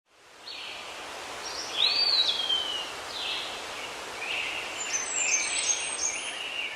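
Rainforest ambience fading in: a steady background hiss with a series of bird calls over it, one a whistle that rises and then slides down slowly about two seconds in.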